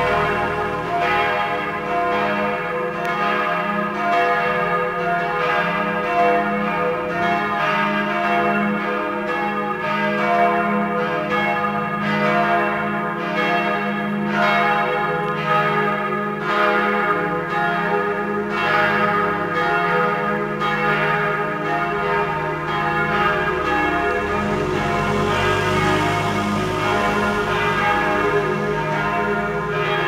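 Church bells ringing together in a full peal, several bells striking in overlapping succession and their tones ringing on steadily.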